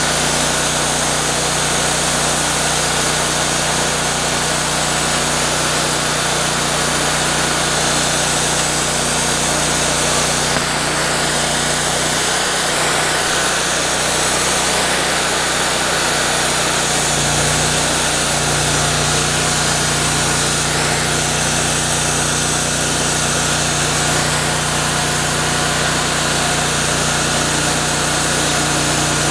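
Wood-Mizer LT40 band sawmill running steadily under load, its engine and band blade cutting a slab lengthwise from a large pecan log. The low engine note changes about seventeen seconds in.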